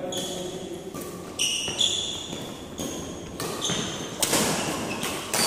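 Badminton doubles rally: rackets striking the shuttlecock in sharp hits, about four of them, with court shoes squeaking on the floor in short high chirps between the shots, echoing in a large hall.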